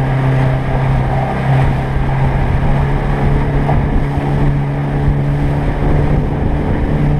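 Outboard motor of a small fishing boat running steadily under way, holding one steady pitch, over the rush of wake water and wind.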